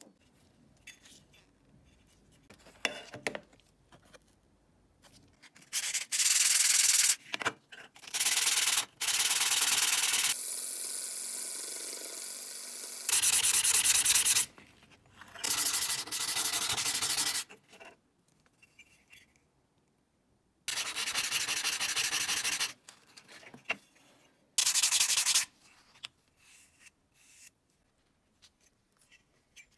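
An abrasive pad scrubbing a wet anodized-aluminium iPod mini shell in repeated bursts of steady rubbing, each a second to three long with short pauses between. The blue anodized finish is being worn off the metal. Before the rubbing starts there is only light handling.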